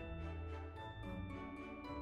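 Background music: a melody of short pitched notes over a steady bass line.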